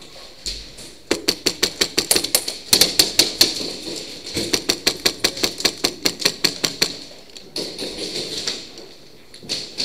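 Airsoft guns firing rapid strings of shots, about six or seven a second, in several volleys from about a second in to about seven seconds, with a softer string of shots near the end.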